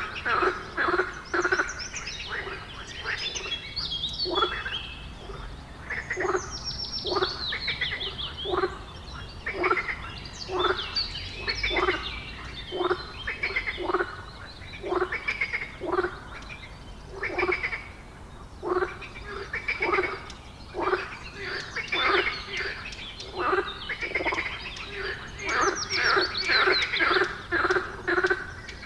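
Frogs croaking in a steady chorus, short calls following one another about once a second, with birds chirping in quick falling notes now and then above them.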